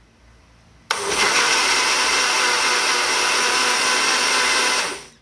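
Small personal bottle blender blending celery into juice: the motor starts suddenly about a second in, runs steadily for about four seconds, and winds down near the end.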